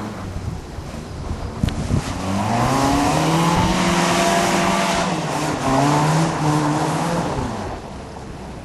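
A rally car driven hard past the spectators: its engine note climbs, drops briefly at a gear change about halfway, climbs again, then fades near the end, over a hiss of tyres on the loose stage surface.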